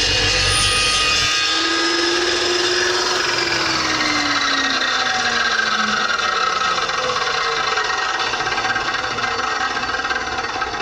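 Evolution carbide-tipped dry-cut chop saw running through a cut in steel. From about a second and a half in, its tones fall steadily in pitch as the blade winds down.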